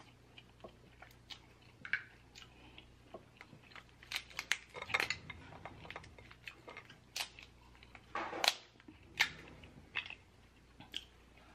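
Snow crab leg shells cracking and snapping as they are broken apart by hand, a scatter of sharp cracks and clicks that is busiest from about four seconds in, with soft eating sounds between.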